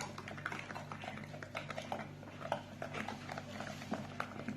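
A utensil stirring a liquid batter in a mixing bowl, with rapid, irregular light clicks and scrapes against the bowl. Under it runs a faint steady low hum.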